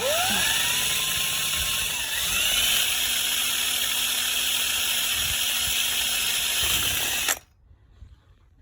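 Electric drill motor spinning up, rising in pitch again about two seconds in, then running at a steady high speed before stopping abruptly near the end.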